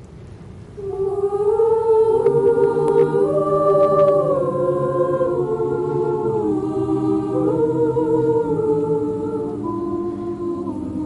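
High school chamber choir singing sustained chords in several parts, the harmonies moving slowly from one held chord to the next. The singing swells in about a second in.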